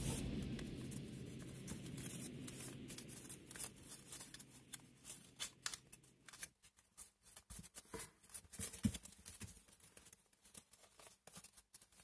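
Sheet of paper crinkling and rustling in quick sharp crackles as hands fold and shape an origami flapping bird, with background music fading out over the first six seconds or so.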